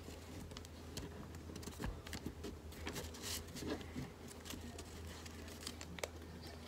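Faint rustling and soft taps of a small sheet of paper being folded and creased by hand against a tabletop.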